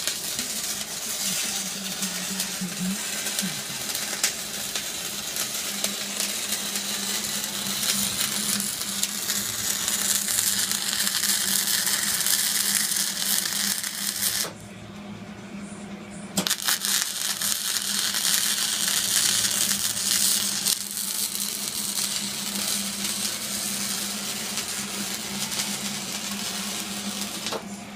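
Arc welding on a bumper: a steady crackling sizzle in two long runs, with a pause of about two seconds near the middle where the bead stops and restarts.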